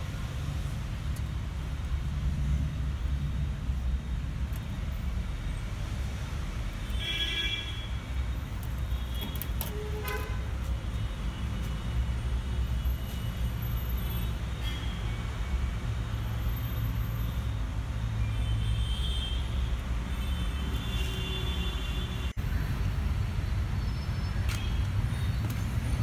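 Steady rumble of road traffic going by, with a few short vehicle horn toots.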